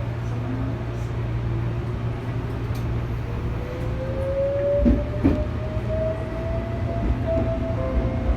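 Tobu 8000 series electric train running: a steady low hum, and from about three seconds in a whine that rises slowly in pitch as it picks up speed. Two short knocks come about five seconds in.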